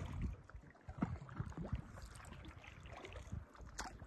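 Kayak paddle dipping and splashing in calm water in irregular strokes, with a low rumble of wind on the microphone.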